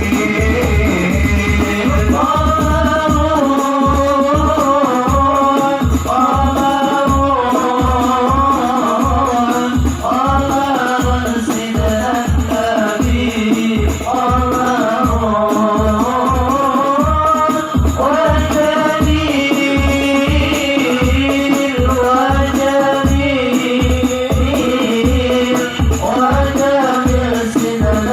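Sholawat devotional music: hand drums keep a steady beat with rattling percussion, under a long held and ornamented melody line.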